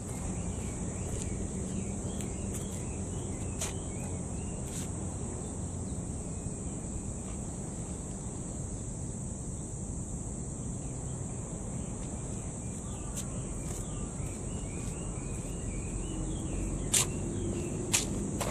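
Outdoor seaside ambience: a steady low rumble and a constant high hiss, with faint short chirps, and two sharp clicks near the end.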